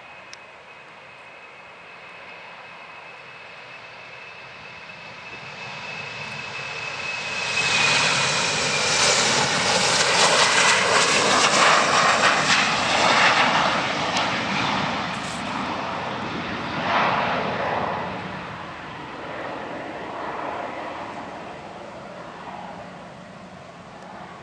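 Embraer ERJ-195's twin GE CF34-10E turbofan engines at full takeoff thrust as the jet rolls and climbs past: a high fan whine that drops in pitch as it passes, under a rushing engine noise that swells to loud about eight seconds in and fades over the last ten seconds.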